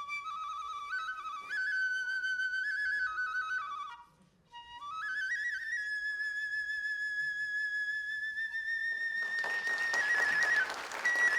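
Kagura bamboo flute playing a solo melody: stepped, ornamented notes, a short break for breath about four seconds in, then one long high held note. About nine seconds in a loud noisy wash across all pitches joins the flute.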